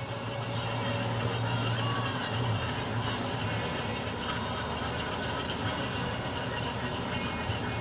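Pot of brown liquid simmering on a stovetop and being stirred: a steady bubbling crackle of many small pops, over a low steady hum.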